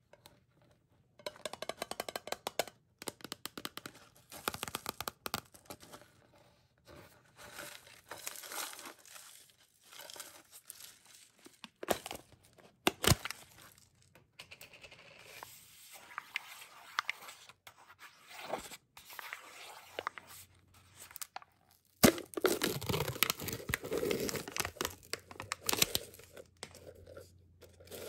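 Hands handling a snack-size Pringles can and peeling off its foil top: tapping and clicking on the cardboard tube, with crinkling and tearing of the foil seal, loudest in a stretch near the end.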